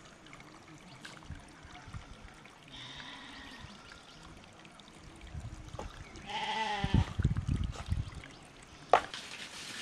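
A single bleating animal call about six seconds in, over low rumbling thumps, with a sharp click near the end.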